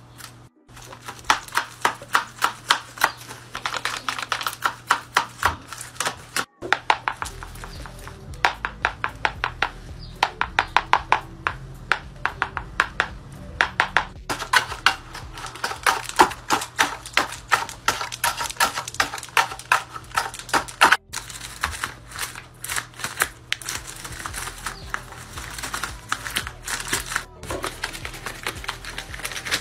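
Quick runs of dry clicking and snapping, about four to five a second, from a folded-paper dragon puppet being worked. Music plays underneath.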